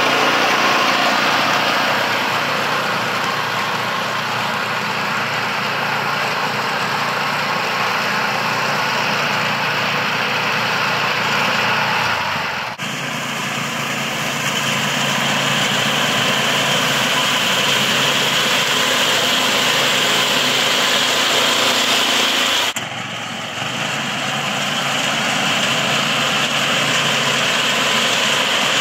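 Small engine of a walk-behind rice reaper running steadily under load while its cutter bar mows standing rice. The sound briefly drops twice, about halfway through and again near three-quarters of the way.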